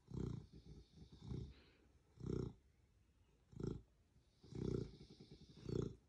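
Beagle snoring very loud in its sleep: six rattling snores about once a second. A breathy hiss runs alongside the first two and the last two.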